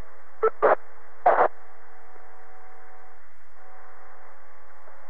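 Open amateur-radio channel heard through a 2-metre FM repeater: a steady hiss with a faint hum of steady tones, broken by three short bursts of sound in the first second and a half. It is dead air, with no reply coming back over the link.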